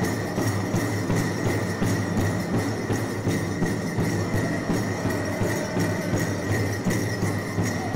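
Powwow drum group singing in unison over a steady, even beat on a large hand drum, with a jingling of bells along with it.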